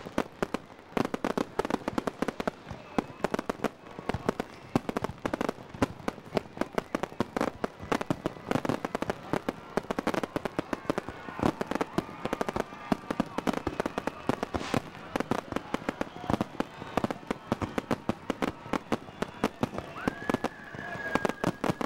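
Fireworks display firing in quick succession: a dense run of bangs and crackles from aerial shells and ground-launched mines. A steady high whistle comes in near the end.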